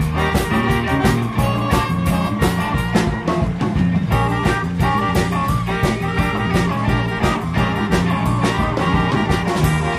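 Upbeat rock-and-roll dance music with a steady, driving drumbeat and a bass line that steps from note to note.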